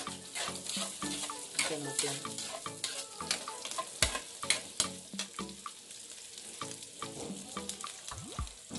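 A metal spatula scrapes and clanks against a metal wok while chopped garlic and meat sauté in hot oil with a steady sizzle. The sharpest clank comes about four seconds in.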